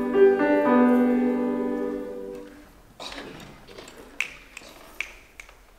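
Piano chords held and fading away, the harmony shifting a couple of times in the first second, then dying out about two and a half seconds in. A few faint, sharp clicks follow.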